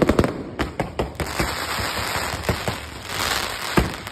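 Aerial fireworks going off: a rapid string of sharp bangs and pops, thickening into dense crackling in the middle, with a louder bang near the end.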